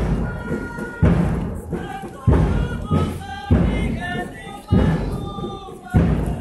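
A processional hymn: voices singing over a slow, heavy drum beat struck about once every second and a bit, setting the walking pace.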